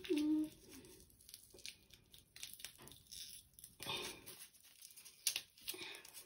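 Soft, scattered crumbling and scraping as a bath bomb is rubbed and broken apart between the hands. A dog's whine at the very start is the loudest sound and fades out within about half a second.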